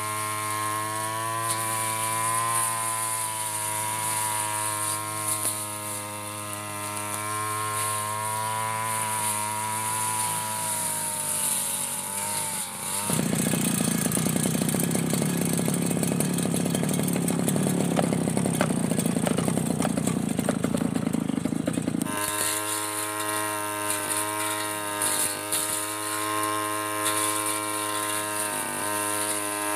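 Backpack brush cutter engine running at high speed with a steady whine, its pitch sinking as it slows about ten to thirteen seconds in. A louder, rougher, noisier stretch follows for about nine seconds, after which the steady high-speed engine whine returns.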